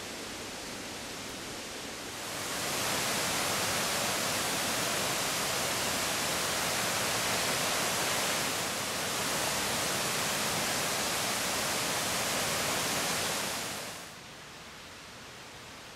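Fast white water of river rapids rushing over rocks, a steady, even rush that comes up about two seconds in and drops away sharply near the end, leaving a soft hiss.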